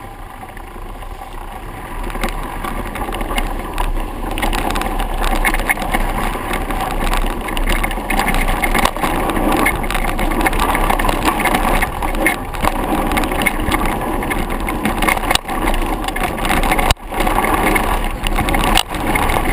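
Mountain bike riding fast down a dirt trail: tyres rolling on dirt, with constant rattling and clatter as the bike goes over bumps. There is a rush of wind noise on the microphone, and the sound gets louder over the first few seconds.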